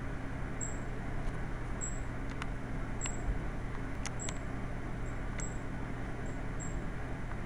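Steady low hum and hiss, with a faint, thin, very high chirp repeating evenly about every second and a few sharp ticks.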